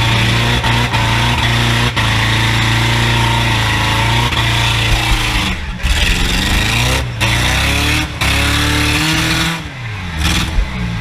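Race car engine running under load, held steady for several seconds, then its pitch falls and rises again as the throttle comes off and back on, with a few brief cut-outs in the second half.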